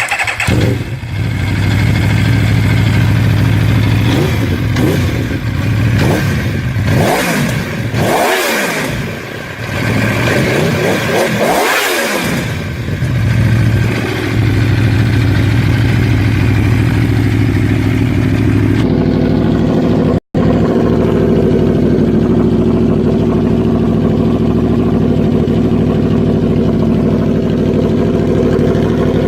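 V4 superbike engine idling, blipped up and down a few times, then idling again. About two-thirds of the way through, the sound cuts to another recording of the engine running steadily.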